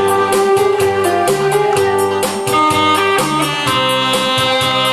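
Instrumental backing music of a Korean trot song, with a steady beat and a bass line and no vocal, as an introduction before the singing.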